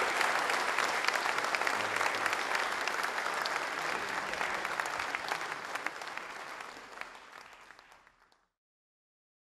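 Audience applauding, a dense patter of many hands clapping that fades away over the last few seconds and stops about eight and a half seconds in.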